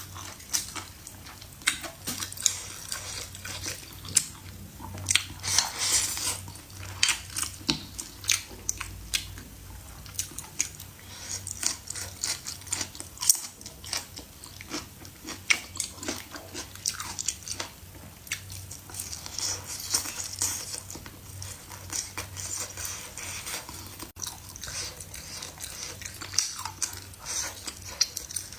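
Close-miked mukbang eating: a person chewing and biting food, with many irregular crisp clicks and wet mouth smacks.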